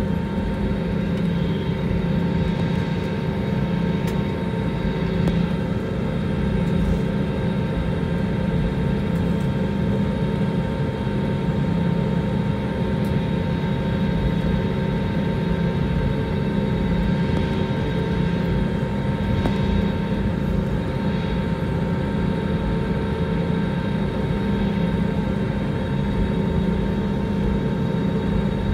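Airbus A320's jet engines running at taxi power, heard from inside the passenger cabin: a steady hum with several held tones and no rise in level.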